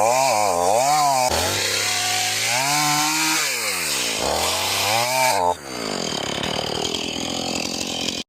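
Two-stroke chainsaw running into a log, its revs rising and falling repeatedly as the chain loads up in the wood. About five and a half seconds in it drops in level to a rougher, less even sound.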